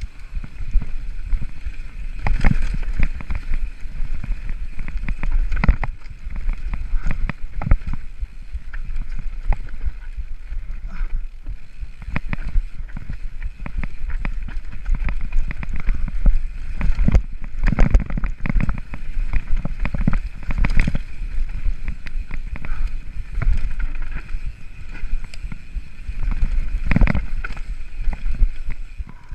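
Mountain bike riding fast down a rocky trail: a steady rumble of tyres on loose stones and dirt, broken by frequent sharp knocks and rattles of the bike over rocks, with wind buffeting the microphone.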